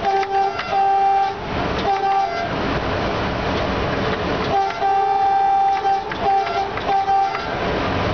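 Locomotive horn sounding in a series of blasts, three short ones and then a longer one followed by two short ones, over the steady rumble of the train running on the rails, heard from the cab.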